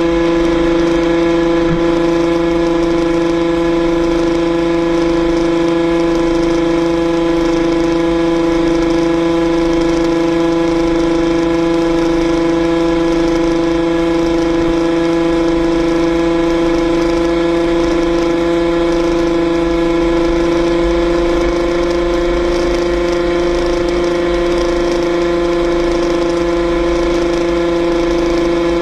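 Yamaha RXZ's single-cylinder two-stroke engine held at high revs while cruising flat out, a constant high-pitched wail whose pitch creeps up slightly about two-thirds of the way through. Wind rumbles on the microphone underneath.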